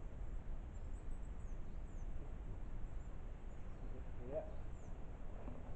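Quiet woodland ambience: a low steady rumble with a few faint, high bird chirps, and one brief faint call about four seconds in.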